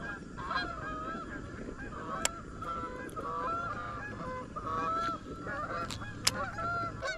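Geese honking repeatedly in a flock, many short calls overlapping. A few sharp clicks stand out against them.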